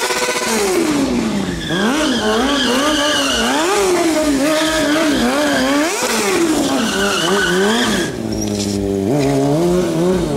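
A high-revving engine of a stunt vehicle, revved up and down over and over, about twice a second at its quickest. About eight seconds in it drops to a lower, steadier running note, then begins to rise again near the end.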